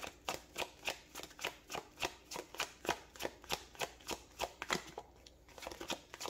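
A tarot deck being shuffled by hand, the cards slapping and riffling in a quick, even rhythm of about four or five strokes a second, with a short break near the end.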